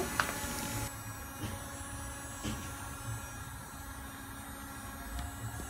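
Toy bubble gun's small electric motor running with a steady buzzing hum, with a few faint clicks.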